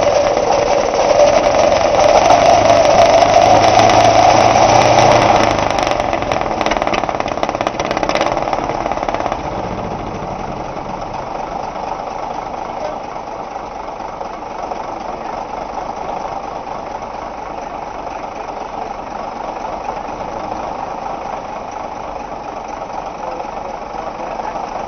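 Second World War US Army Caterpillar crawler tractor's diesel engine running just after being started by its donkey engine. It runs loud for the first five seconds or so, drops back about five seconds in and again about nine seconds in, then settles to a steady idle.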